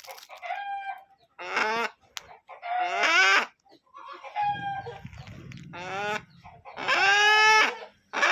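Desi chickens calling: a few short clucks and several loud, drawn-out squawks, each under a second, the loudest near the end.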